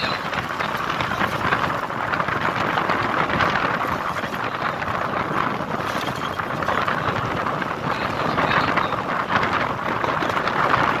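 Steady noise of a car driving across sand, heard from the car itself, with wind rushing over the microphone.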